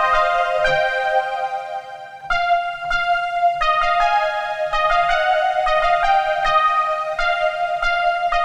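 Modal Electronics Cobalt5S virtual-analogue synthesizer played on its keys with a factory preset: chords and single notes changing every half second or so. The sound dips briefly about two seconds in, then new notes come in.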